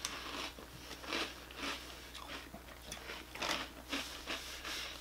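A person chewing a mouthful of crunchy O-shaped fruit-flavoured cereal close to the microphone, crunching roughly twice a second.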